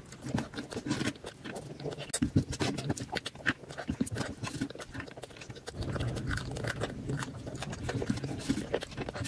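Close-miked eating sounds: wet chewing, lip smacks and mouth clicks from a mouthful of curry rice eaten by hand, with fingers scraping rice across the tray.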